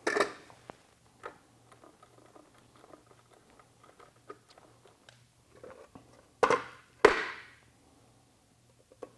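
Metal parts of a nut-sheller stool being handled and fitted on a plywood disc: small clicks and scrapes, with three sharp clanks, one right at the start and two close together late on, the last ringing briefly.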